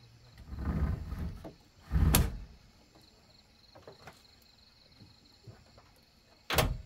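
A sliding rumble and a sharp knock about two seconds in as gear at the back of a pickup is moved, then the Ford Ranger's tailgate is swung up and shut with a single loud thud near the end.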